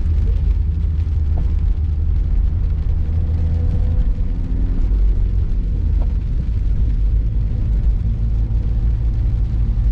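A car driving on a wet road, heard from inside the cabin: a steady low rumble of engine and tyres.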